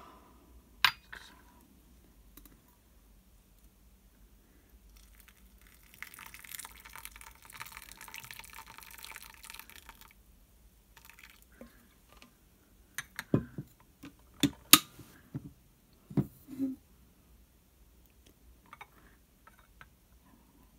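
Hot water poured from a thermos flask into a porcelain gaiwan of tea leaves: a steady splashing pour of about four seconds. A few seconds later come several sharp knocks and porcelain clinks, the loudest sounds here, as the flask and the gaiwan's lid are handled.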